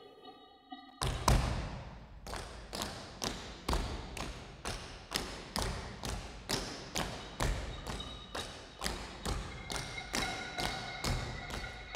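A steady beat of heavy percussive thuds, a little over two a second, starting about a second in. High held tones join in past the middle.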